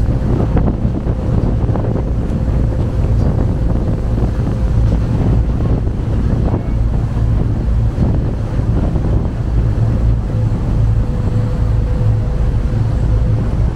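River boat under way: steady engine rumble and water rushing along the hull, with wind buffeting the microphone. A faint steady whine sits over it.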